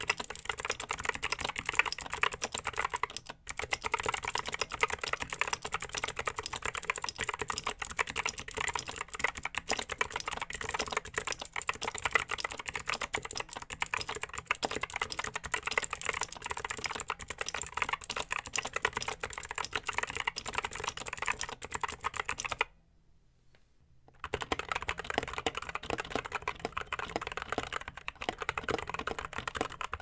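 Fast, continuous touch-typing on a 60% keyboard with Gateron Optical Blue clicky switches: a dense clatter of key clicks. About three quarters of the way through, the typing stops for a second and a half, then resumes on Gateron Optical Brown tactile switches.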